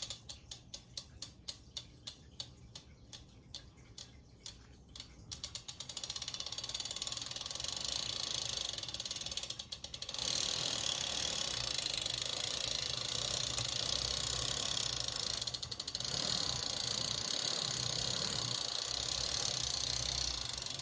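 Mavic Crossride rear hub's freehub pawls ticking as the wheel spins. For about the first five seconds the ticks come one by one, a few each second, then they run together into a fast, even buzz that breaks briefly twice.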